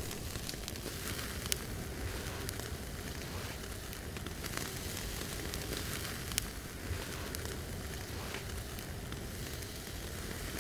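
Wood campfire crackling under steaks sizzling on a wire grill grate over the coals, with a few sharp pops from the burning wood.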